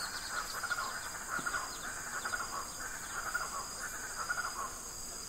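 Rainforest ambience: a steady high-pitched insect drone under a rhythmic, pulsing chirping chorus, with a few faint short calls on top.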